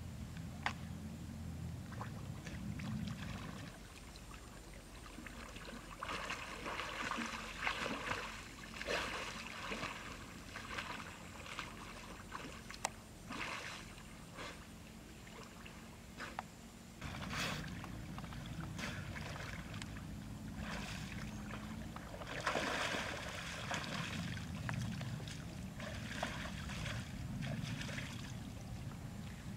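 Irregular splashing and sloshing of water from a person swimming and wading in a river, with a few sharp clicks.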